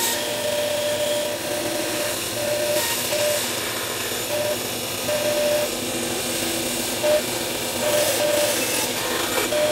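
Small electric bench saw running and cutting a curve in a thin piece of hardwood: a steady hiss, with a higher tone that comes and goes several times as the wood is fed into the blade.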